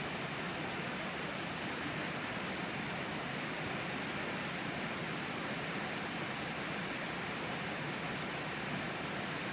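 Steady rushing of the Tama River flowing beside the camp, an even noise-like hiss at a constant level, with a thin steady high-pitched whine over it.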